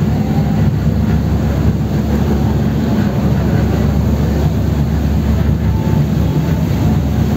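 Tour boat's engine droning steadily, heard from inside the enclosed passenger cabin while the boat runs under way.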